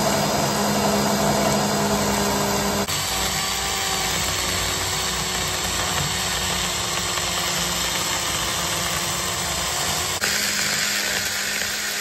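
Cordless mini circular saw running as its blade cuts through a frozen ostrich eggshell: a steady motor whine over a rough hiss. The tone shifts abruptly about three seconds in and again near ten seconds.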